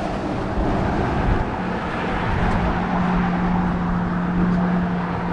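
Road traffic on a highway bridge: a steady rumble with a low droning hum that grows stronger from about a second and a half in.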